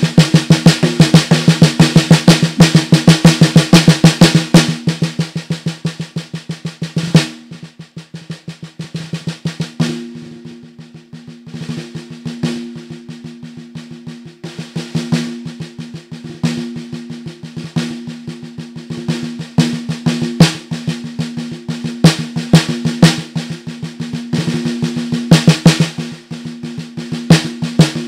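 Snare drum with a granite shell and an Evans head, played with wooden sticks. Fast, loud strokes run for about seven seconds and end in a hard hit, then the playing turns softer and sparser: the drum's ring comes through, with loud accents now and then.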